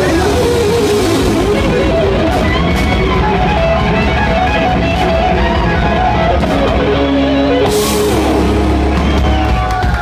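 A live rock band playing loud: distorted electric guitar, bass and drum kit. The music cuts off abruptly at the end.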